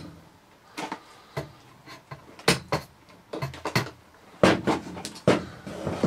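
Hard plastic parts of a Hoover Whirlwind vacuum cleaner knocking and clicking as its internal hose and housing are worked loose by hand: a scatter of short sharp knocks, several close together in the middle and towards the end.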